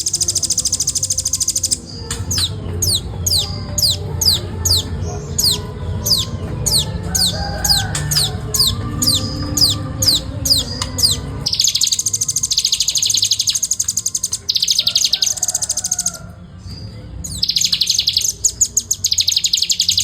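A velvet-fronted nuthatch singing: a fast, tight trill, then a long run of high notes sliding down in pitch at about two a second, then more fast trills, in the rapid non-stop 'ngebren' style. A low rumble runs underneath through the middle of the run.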